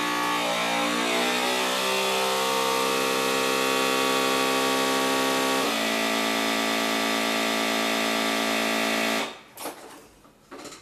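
FoodSaver vacuum sealer's pump running with a steady hum as it draws the air out of a bag. Its pitch drops over the first couple of seconds and steps down again about halfway. It cuts off suddenly about nine seconds in, followed by a few light clicks as the sealer's lid is opened.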